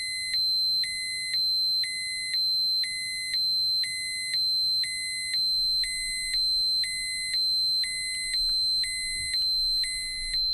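High-pitched electronic alarm: a steady piercing tone, with a second, lower tone beeping on and off about once a second over it.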